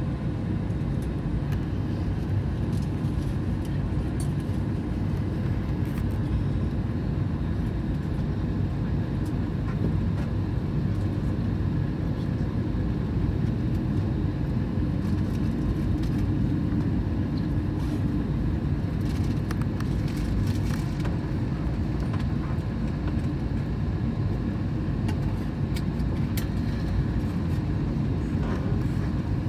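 Steady low rumble of an Airbus A321neo's air-conditioning and ventilation system, heard inside the cabin of the airliner parked at the gate with its engines not yet started.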